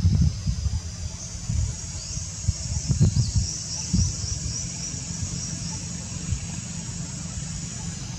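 Outdoor ambience: an irregular low rumble with thumps, typical of wind buffeting the microphone. Above it runs a steady high insect chirring, with a quick run of high chirps about two to four seconds in.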